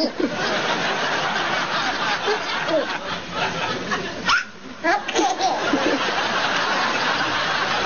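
A baby hiccuping, a short sharp catch near the start and again about four seconds later, over a steady hiss of noise with snatches of laughter.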